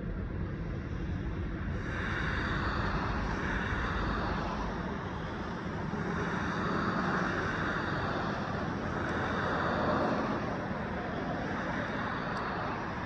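Road traffic: cars passing one after another, a steady tyre hiss that swells and fades about four times as each goes by, over a low rumble.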